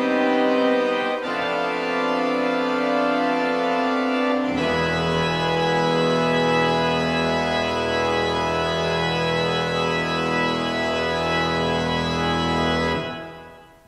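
Organ playing sustained chords; about four and a half seconds in a deep bass chord comes in and is held, then dies away near the end, closing the piece.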